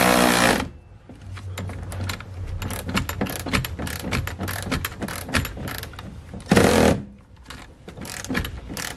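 Milwaukee cordless ratchet tightening bolts: its motor whines until about half a second in, then irregular ratchet clicking follows as the bolts are worked, with another short run of the motor about six and a half seconds in.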